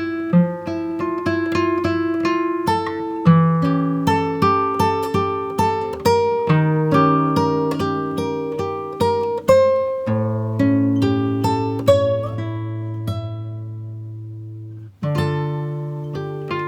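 Background music of plucked acoustic guitar. A low note is held and dies away for a few seconds, and the playing starts again about fifteen seconds in.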